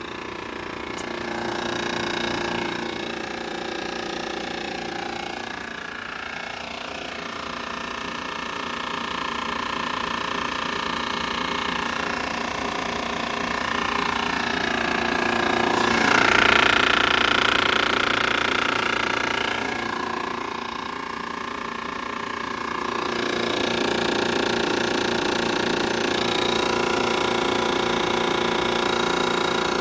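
2015 4-ton Carrier Comfort heat pump's compressor running with a continuous rattling buzz, swelling louder about halfway through, while its condenser fan stands still. The owner blames a bad fan capacitor and believes the overheated compressor is probably failing as well.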